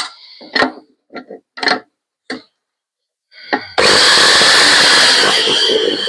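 A few short knocks and clicks of wood being handled, then about four seconds in a power tool starts abruptly and runs loud and steady, working the wooden spacer stock.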